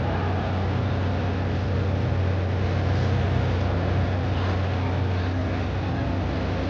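The steam-powered Mark Twain sternwheel riverboat under way, a steady low hum over a continuous rushing noise of machinery and churning water.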